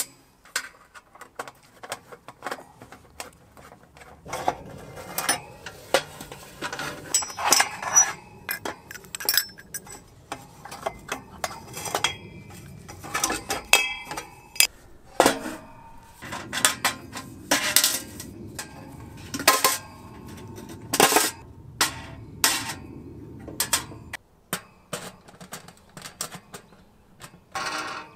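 Sheet-metal stovepipe sections and a steel oven-pan stove clinking and clanking as they are handled, nested and fitted together, with many sharp metallic knocks throughout.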